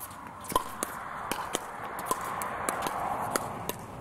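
Pickleball doubles rally at the net: a quick, uneven string of sharp pops as paddles hit the plastic ball, with players' feet shuffling on the hard court.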